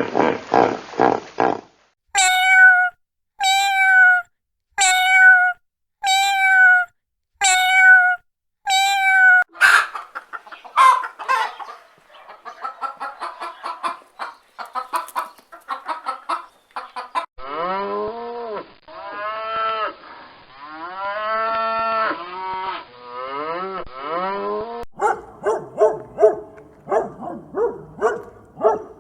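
A run of different farm animal calls one after another: six short, evenly spaced calls held on one pitch, then a spell of quick clucking, then several long calls that rise and fall in pitch, and a burst of rapid short calls near the end.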